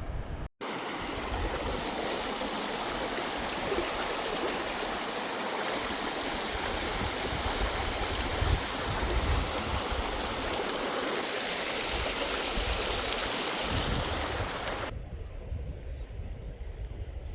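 Fast-running river water rushing over stones, a steady close-up rush of water noise. It cuts off suddenly about fifteen seconds in, leaving a quieter outdoor background.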